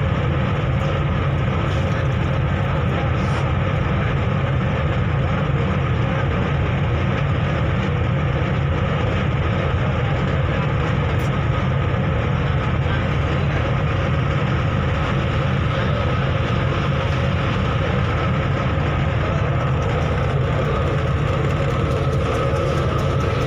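A river ferry's engines running under way with a steady low drone, heard from the passenger deck.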